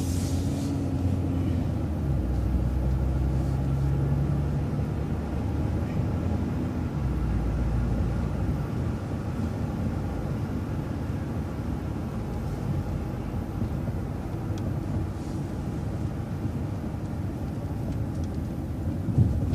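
City transit bus driving, its engine and road noise heard from on board as a steady low rumble. A brief knock sounds near the end.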